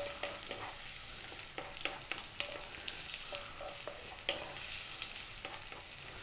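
Sliced onions, ginger strips and garlic sizzling in hot oil in a nonstick wok, stirred with a wooden spoon that scrapes and taps against the pan at irregular moments.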